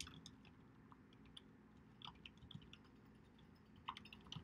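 Faint, irregular keystrokes on a computer keyboard as a line of text is typed, with a few slightly louder taps about two seconds in and near the end.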